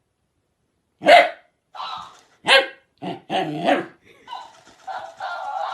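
A dog barking: about five short barks a second or so apart, then a longer, more continuous run of dog sounds near the end.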